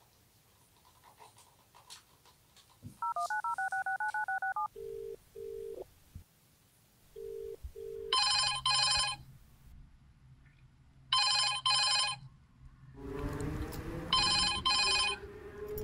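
Telephone tones: a quick warble of alternating high and low beeps, then two short double-pulse ringing tones heard down the line, then a telephone ringing three times in double rings.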